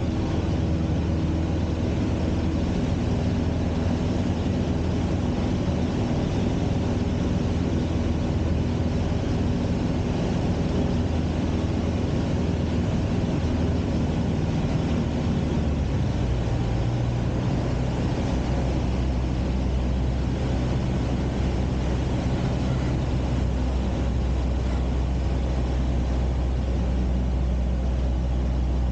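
Cessna 150's four-cylinder Continental O-200 engine and propeller droning steadily, heard inside the small cabin along with airflow noise over the airframe. About halfway through, the engine's tone shifts, a change in power setting.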